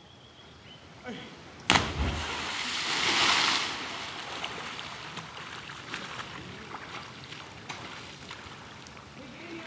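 A person plunging into a lake from a high bridge: a sudden loud smack as the body hits the water about two seconds in, then a splashing hiss that swells and fades over the next two seconds.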